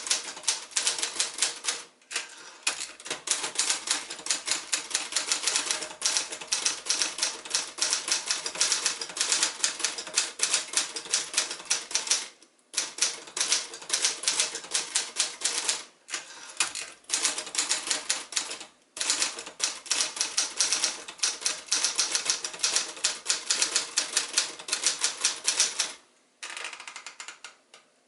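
Royal Champion L manual portable typewriter, an Adler J5 under the Royal badge, being typed on at speed: rapid runs of key strikes clattering, broken by a few short pauses. Near the end the strikes give way to a briefer, softer stretch.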